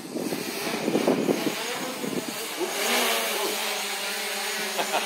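Small quadcopter drone's propellers whining in flight. Their pitch wavers about two and a half seconds in, then holds steady.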